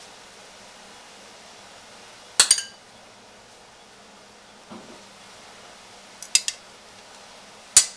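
A metal spoon clinking against dishware while fruit cocktail is spooned onto a plate: a sharp ringing clink about two and a half seconds in, a soft knock near the middle, a quick double clink a little past six seconds and another clink near the end.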